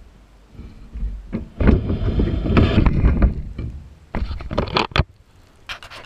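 Water splashing and sloshing inside a dishwasher for a couple of seconds, followed by several sharp clattering knocks from the wire racks as the door is opened and the camera is handled.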